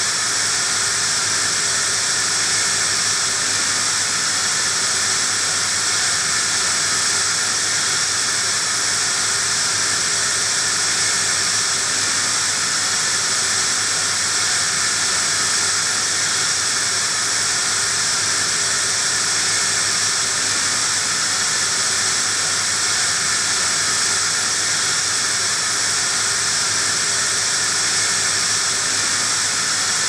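Steady, loud hiss of television static (white noise), bright and high with an unchanging level, over a faint low hum.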